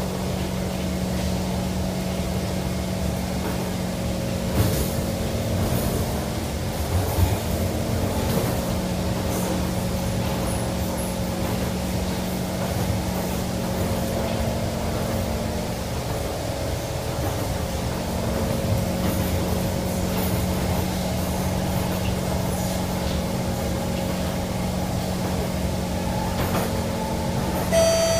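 Kawasaki Kinki Sharyo C151 metro train heard from inside the carriage while running: a steady rumble of wheels on rail under a steady hum, with two brief knocks about five and seven seconds in.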